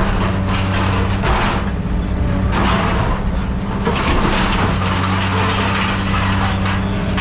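Heavy scrap-handling machine's diesel engine running steadily, with scrap metal scraping and clanking in several short stretches.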